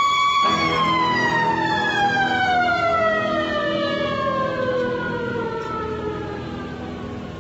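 A held, siren-like electronic tone with overtones that, about half a second in, starts a slow downward glide in pitch lasting about six seconds, fading as it falls, over a low steady drone.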